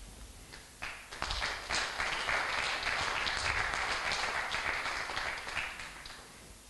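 Audience applauding: clapping starts about a second in, swells, and dies away near the end.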